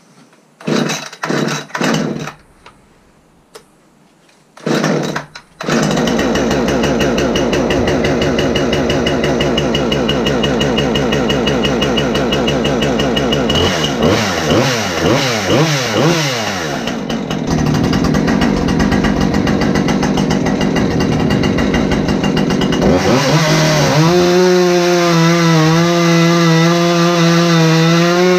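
Husqvarna two-stroke gasoline chainsaw being pull-started with several cord pulls before it catches about six seconds in. It runs steadily and is blipped on the throttle a few times, settles to idle, then goes to full throttle near the end and cuts into a log.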